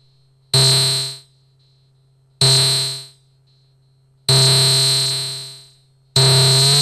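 Electronic notes from a homemade ring modulator: four buzzy tones of the same low pitch, each cutting in sharply and fading away over about a second. The fourth lasts longer, and near the end its pitch begins to glide upward as a knob is turned.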